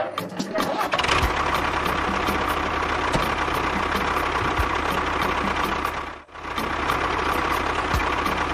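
A motor running steadily with a rough, noisy sound. It starts about a second in, cuts out briefly about six seconds in, then runs again.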